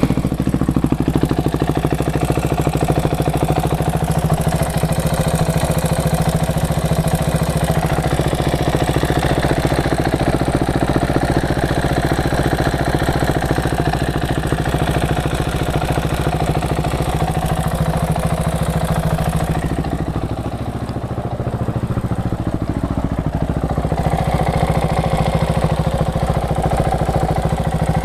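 KTM 690 SM's LC4 single-cylinder engine idling right after starting, with the ticking the owner suspects comes from the cam chain tensioner. The idle softens for a few seconds about twenty seconds in, then picks up again.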